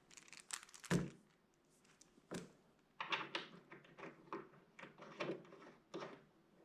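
Handling noises: intermittent rustling and clicking, with a dull thump about a second in and another at about two and a half seconds.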